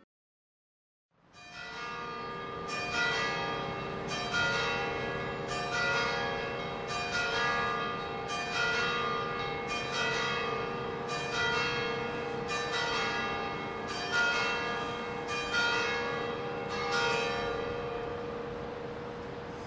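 A single swinging church bell of Notre-Dame de Paris, beginning about a second in and struck about every one and a half seconds, its tones ringing on between strokes.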